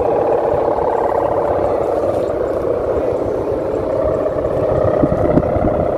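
Sendaren, the bowed hummers strung on the tops of kites, droning steadily in the wind. The drone is a loud, buzzing, wavering tone, with an irregular low rumble underneath.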